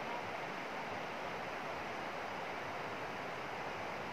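River water rushing steadily, an even noise with no break or change.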